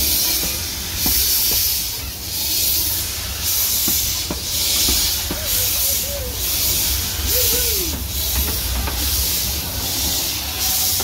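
Miniature steam locomotive blowing steam from its open cylinder drain cocks: a loud hiss that swells and fades about once a second over a low rumble, clearing condensed water out of the cylinders. The hissing stops at the very end.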